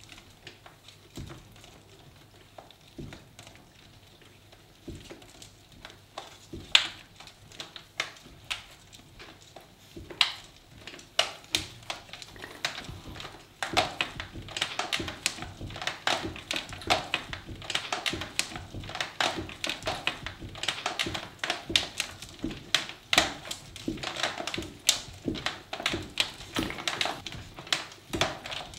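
Sauce squeeze bottles spurting and spattering onto a turning cylinder of frozen ice cream, with drips tapping below: a run of short wet splats and clicks, sparse at first and coming thick and fast from about halfway through.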